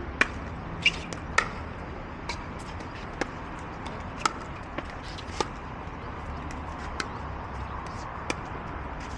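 Pickleball paddles hitting the hard plastic ball: about ten sharp pocks at irregular intervals, some louder and closer, others fainter from neighbouring courts. A steady low rumble of outdoor background noise lies underneath.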